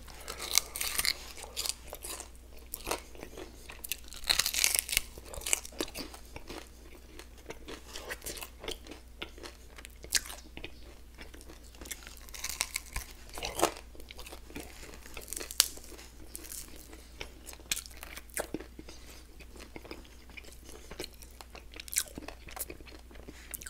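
Crunching and chewing as a person bites into crispy chicken wings glazed in peanut butter and jam. Irregular sharp crunches come throughout, with a few louder bites.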